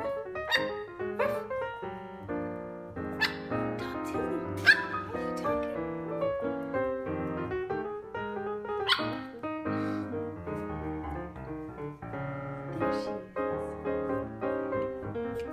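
Piano background music, with several short, high yips from Chihuahua puppies at play scattered through it.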